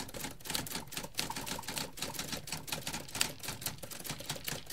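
Typewriter keys clacking in a rapid, uneven run that cuts off abruptly near the end.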